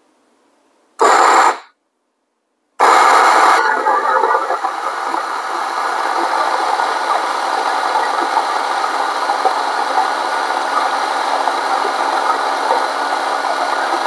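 Fiorenzato Allground's 64 mm flat burrs grinding coffee beans at an espresso setting: a brief loud burst about a second in, then steady grinding from about three seconds in, loudest as it starts.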